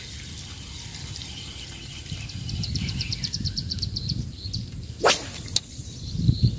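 Handling noise from a spinning rod and reel: a steady low rumble, a quick run of high ticks lasting about a second and a half, then two sharp clicks about five seconds in and a low thump near the end.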